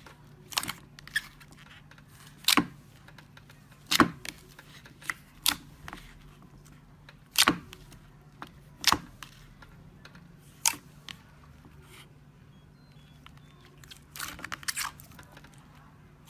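Slime being pressed and squeezed by hand, giving a dozen or so sharp, separate pops and clicks at irregular intervals, with a quick cluster of them near the end.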